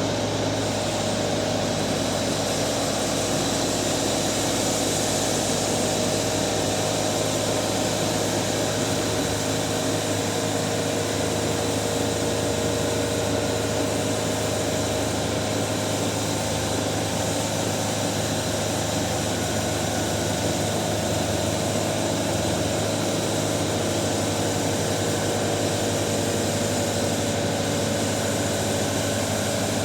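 A machine running steadily with an engine or motor hum, its level unchanging throughout.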